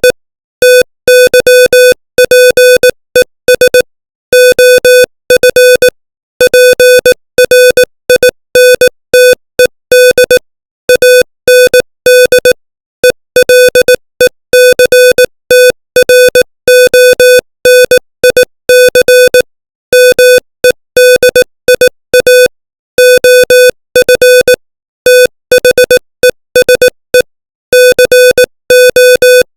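Morse code tone keyed at 18 words per minute: a single mid-pitched, slightly buzzy tone switched on and off in short dots and longer dashes, with longer gaps between letters and words, sending plain English text.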